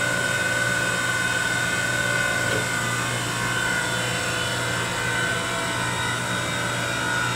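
Coolant pump on a Parker-Majestic universal cylindrical grinder running steadily: an even electric-motor hum with a thin, constant high whine.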